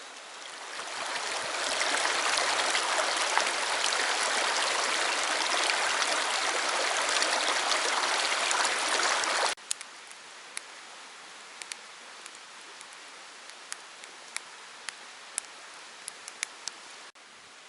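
Rushing water of a stream that swells in and runs loud for about nine seconds, then cuts off abruptly. A much quieter steady hiss follows, with scattered sharp cracks and snaps.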